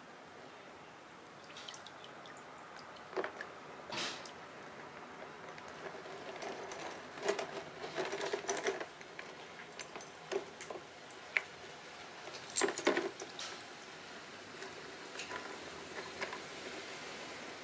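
Light clicks and clinks of small metal carburetor parts being handled and set down on a workbench, with some rustling. There is a busier stretch of clatter around the middle and another about two-thirds of the way through.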